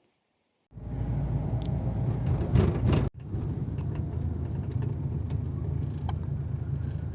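Steady low road-and-engine rumble of a moving car, starting abruptly under a second in and briefly broken by an edit cut about three seconds in.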